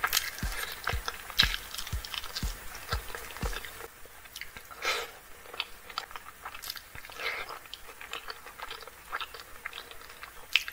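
Close-miked chewing of meat and rice eaten by hand, with many short wet mouth clicks scattered throughout. Soft low thumps come about twice a second in the first few seconds.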